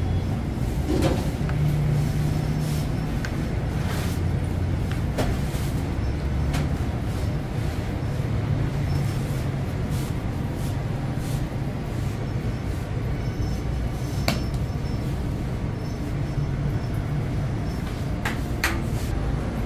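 Bakery working noise: a steady low rumble of oven and machinery, with scattered sharp knocks and clatter of tools and trays, a few seconds apart.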